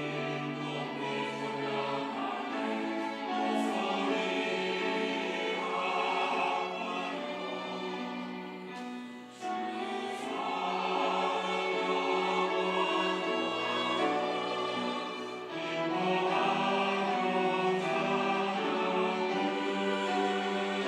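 Church choir singing a sacred anthem in sustained, full-voiced phrases, with a brief breath between phrases about nine seconds in.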